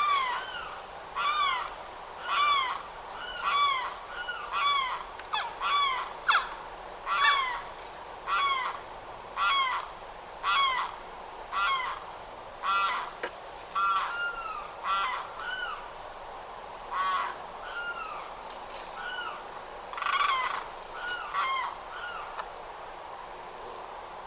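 Limpkin calling: a long series of loud, wailing notes, each rising and then falling in pitch, repeated about once a second. The calls space out and stop shortly before the end.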